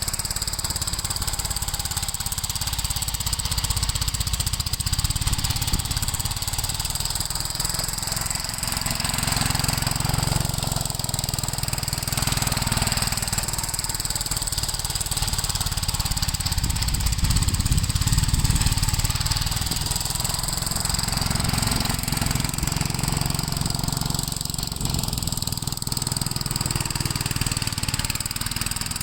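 Gravely L8 walk-behind tractor engine running steadily while plowing snow, its low rumble swelling and fading every several seconds.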